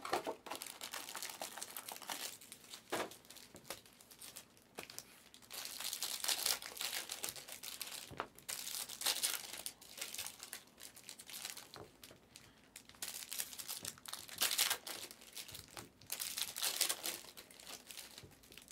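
Foil wrappers of Panini Select trading-card packs crinkling as the packs are handled and pulled from the box, in irregular bursts of rustling, with a wrapper being torn open near the end.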